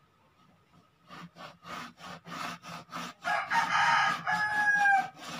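A rooster crowing: a run of short calls from about a second in, building into one long, loud crow that falls in pitch near the end.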